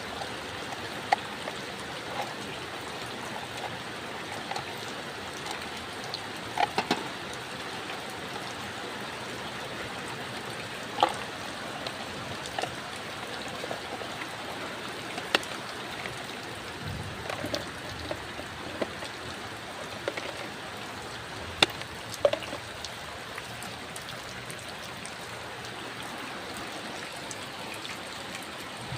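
Steady rain, an even hiss, with scattered sharp taps standing out now and then.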